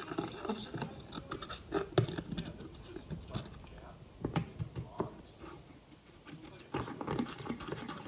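Knife blade scraping and chipping pressed eyeshadow out of a palette's pans: an irregular run of scratchy clicks and scrapes that eases a little past the middle, then picks up again near the end.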